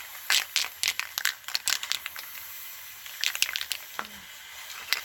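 Small objects being handled: irregular sharp clicks and crinkling in two bunches, the first about half a second in and the second a little past three seconds.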